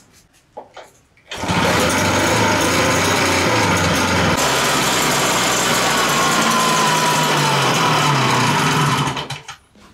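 STIHL SR 450 backpack sprayer's small two-stroke engine running loud and steady. It comes in suddenly about a second in and dies away near the end.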